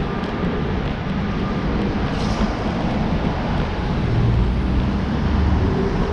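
Steady low rumble of street traffic, growing louder about four seconds in.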